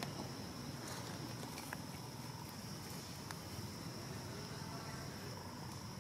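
Steady high-pitched insect drone of forest ambience, with a few faint clicks about a second in and again around three seconds in.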